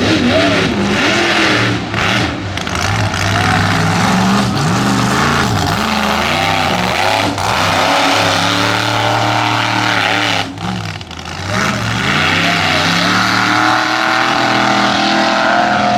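Mega truck engine revving hard, its pitch rising and falling, dropping off briefly about ten seconds in before climbing again.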